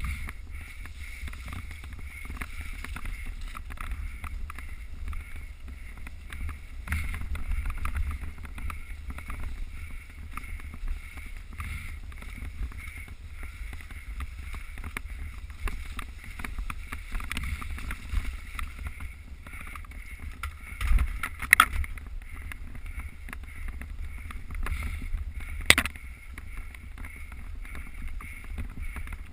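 Mountain bike ride heard through a GoPro camera: steady wind rumble on the microphone with riding noise. There are two sharp knocks near the end.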